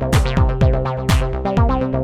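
Electronic dance music with a kick drum hitting about four times a second, sharp hi-hat and cymbal hits, and sustained synthesizer chords.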